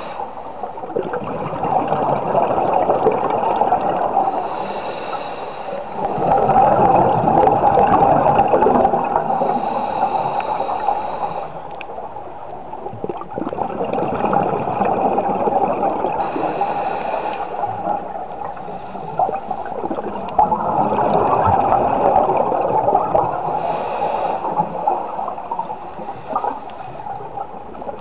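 Scuba diver breathing through a regulator underwater: a gurgling rush of exhaled bubbles alternating with the hiss of an inhalation, one breath about every six seconds.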